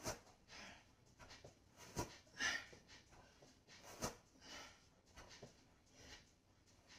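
A person breathing hard through sit-up crunches: a sharp puff of breath about every two seconds, each followed by a softer, hissing breath.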